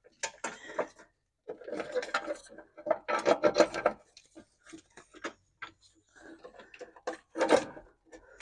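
Plastic battery tray and wiring being worked into place in a Fiat 500's engine bay: irregular scrapes, rubs and knocks of plastic on metal, loudest about three seconds in and again near the end.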